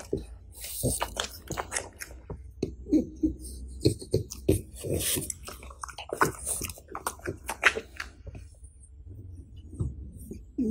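French bulldog chewing a blueberry and smacking its lips: an irregular run of wet mouth clicks and chomps that dies down about eight seconds in, then starts again near the end.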